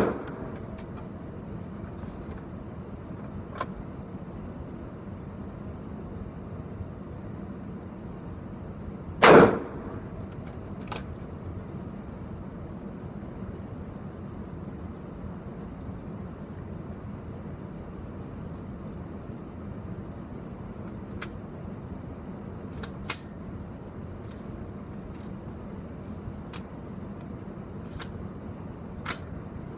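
A newly built lightweight AR-15 rifle fires a single loud shot about nine seconds in, echoing in an indoor range, as it is test-fired for function. Shorter, quieter cracks follow, two close together later on and one near the end, over a steady low hum.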